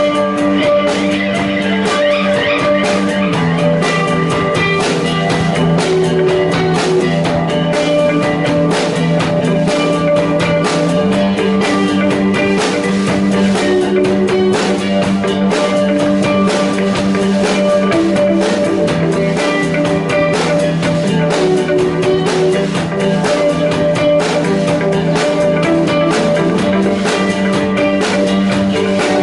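Live rock band playing an instrumental passage: a drum kit keeps a steady, busy beat under guitars, with the low line shifting back and forth between two notes every few seconds.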